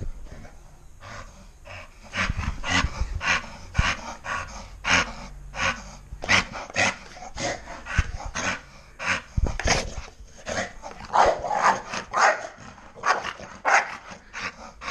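American Bully dog growling and huffing in play, a rapid run of short sounds about two or three a second, with bumps and rustling as it tussles on the bed.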